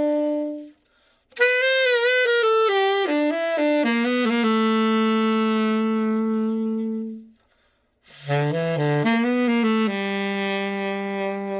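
Ida Maria Grassi Prestige tenor saxophone played solo after a full overhaul. It plays two phrases of quick running notes, each ending on a long held low note, with a short pause before each phrase.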